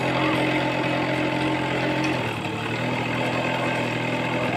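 A motor vehicle's engine running steadily, its pitch shifting slightly a little after two seconds in.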